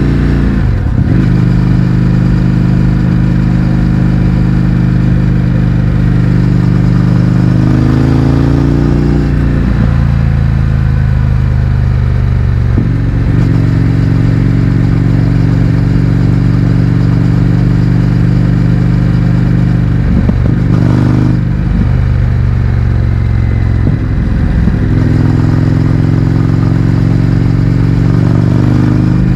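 Indian FTR 1200's V-twin engine through a baffle-less Akrapovic exhaust, running at a steady cruise. Its note holds for long stretches and shifts pitch several times as the throttle changes, rising around eight seconds in and dropping back about two seconds later.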